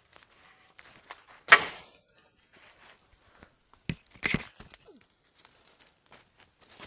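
Handling noises with no saw running: a sharp scrape about one and a half seconds in, then a knock and a second scrape near four seconds, with small rustles and clicks between.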